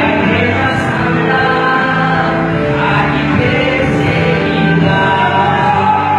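Gospel song with a choir singing over instrumental backing.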